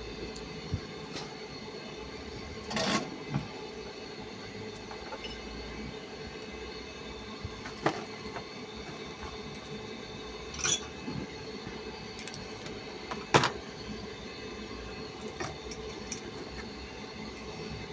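Steady hum of a small electric motor, with a few sharp clicks and knocks scattered through, the loudest a little past halfway.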